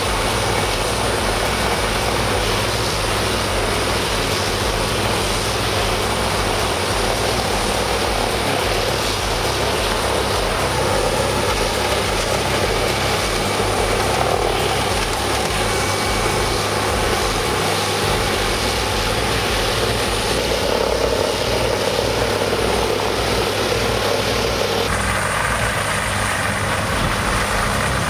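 Heavy diesel-powered machine running steadily with a constant low engine drone and mechanical noise. The sound shifts about 25 seconds in.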